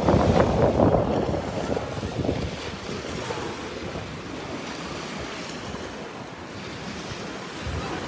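Small waves breaking on a sandy beach: the loudest rush in the first second or so, then a softer, steady wash of foam spreading and pulling back over the sand. Wind buffets the microphone.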